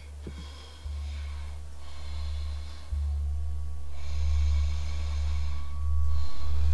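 A low, steady music drone that grows louder in steps, with three slow, heavy breaths over it.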